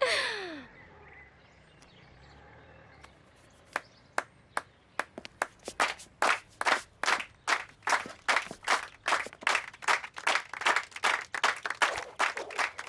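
Music cuts out with a sliding drop in pitch as the sound system is unplugged. After a couple of seconds of quiet, an audience starts clapping: a few scattered claps that build into steady rhythmic clapping of about two to three claps a second.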